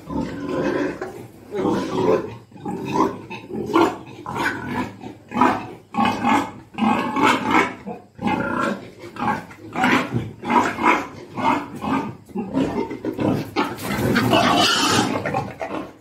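Pigs grunting during mating: short, rough grunts in quick succession, about one or two a second, with a longer, harsher sound near the end.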